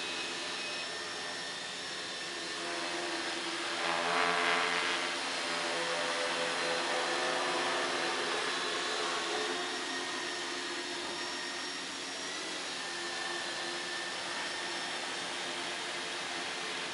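Xaircraft 600D quadcopter's motors and propellers buzzing steadily in hover, a many-toned drone whose pitch wavers slightly. It swells louder for about a second around four seconds in.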